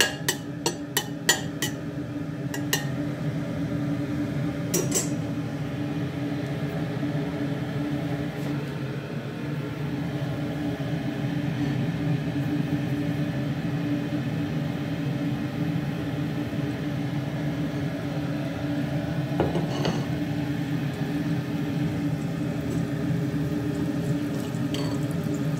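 Slotted metal skimmer clinking against a stainless steel pot, a quick run of taps in the first few seconds and one more a little later, as garlic is stirred in hot oil. After that a steady low hum with a faint hiss runs on underneath.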